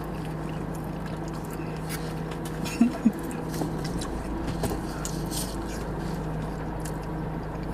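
Steady low hum of a car running inside its closed cabin, with scattered small clicks and scrapes of eating from takeout containers and two sharp knocks close together about three seconds in.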